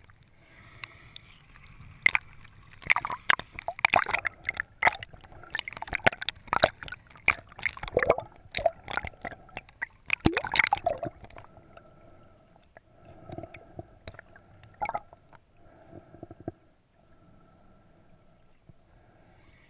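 Underwater sound heard through a GoPro's waterproof housing: bubbling and water movement with a run of sharp clicks and knocks for the first ten seconds or so, then quieter, with a faint steady hum and a few more clicks.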